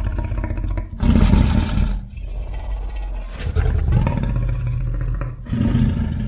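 Creature roar sound effect for the tapiraphant: a deep, continuous growl that swells into three louder roars, about a second in, around three and a half seconds in, and near the end.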